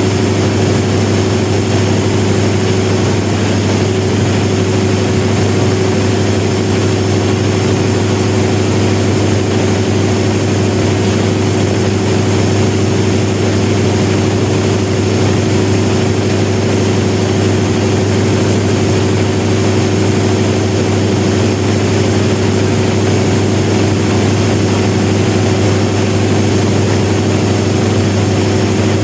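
1000 kW diesel generator set running at a constant speed: a loud, even, deep drone that does not change.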